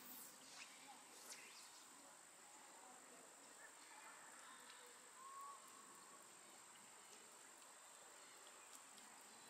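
Near silence: faint outdoor ambience with a steady high-pitched whine and a few faint short chirps.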